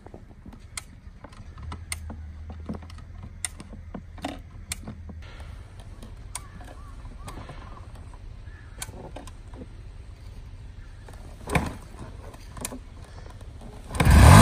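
A motorcycle being kick-started again and again: scattered knocks and clicks as the engine is turned over without catching. Near the end the engine catches and starts running loudly.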